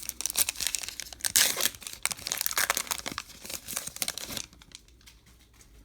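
Baseball card pack wrapper being torn open and crinkled by hand, with dense rustling for about four seconds, then stopping.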